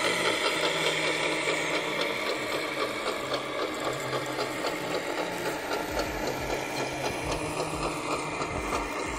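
Geared drive of an RC model truck running, a fast mechanical ratcheting whir with a low motor hum that shifts in pitch.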